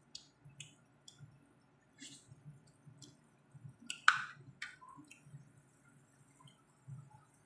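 Chayote and egg simmering in a frying pan: scattered pops and small crackles from the bubbling sauce, the loudest pop about four seconds in.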